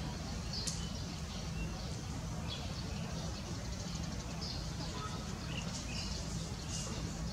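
Steady outdoor background noise with a low rumble, broken by scattered short, high chirps, several a second at times.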